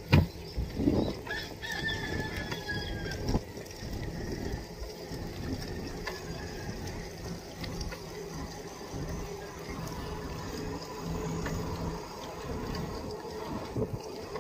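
A rooster crows once, starting about a second in, over the steady noise of a bicycle riding along a concrete road. A sharp thump comes right at the start.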